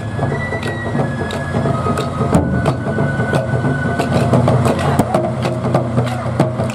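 JNR DD51 diesel-hydraulic locomotive idling with a steady low engine hum. Over it come scattered sharp knocks from taiko drums and sticks, with a few short high notes.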